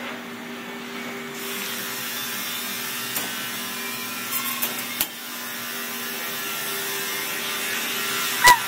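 A cat purring close to the microphone, a steady buzzing rasp over a faint hum, with a sharp knock and a short squeak near the end.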